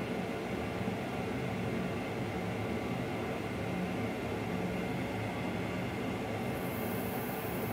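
Steady flight-deck background noise of a Boeing 737NG full flight simulator in level flight: an even hum and rush with a few steady low tones, and a faint high hiss added near the end.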